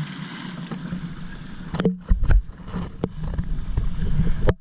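Motorboat engine running steadily, towing a banana boat, with wind rumbling on the microphone and a few sharp knocks about two seconds in and near the end.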